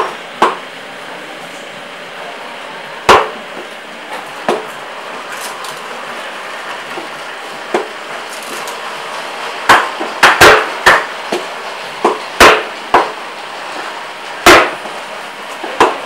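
Heavy cleaver chopping through chunks of tuna into a wooden chopping block: sharp, irregular chops, several in quick succession about ten seconds in, over a steady background noise.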